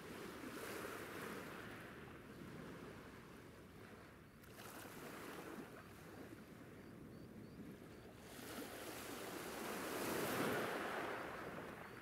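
Sea waves washing in, a faint surging hiss that swells and ebbs and is loudest about ten seconds in, with a few faint high chirps.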